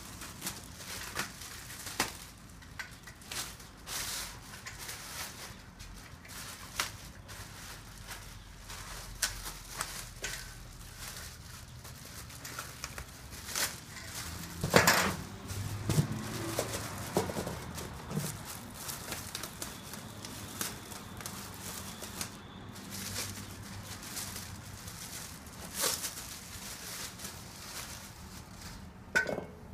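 Plastic wrapping crinkling and rustling as bench parts are handled and unpacked from a cardboard box, with scattered clicks and knocks of metal parts; the loudest is a heavier knock about halfway through.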